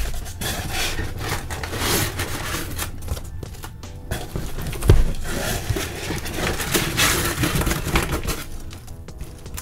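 Hands handling cardboard and styrofoam packing inside a shipping box: irregular rustling and scraping, with a single thump about five seconds in.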